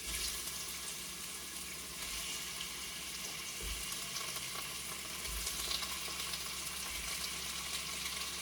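Shrimp and garlic frying in hot oil in a pot: a steady sizzle.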